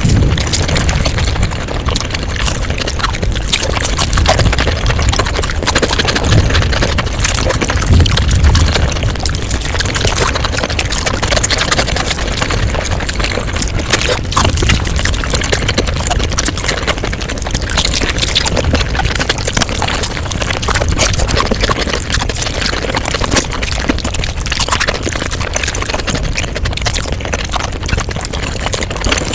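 Mukbang eating sounds sped up five times: chewing, crunching and slurping run together into a dense, unbroken stream of fast wet clicks.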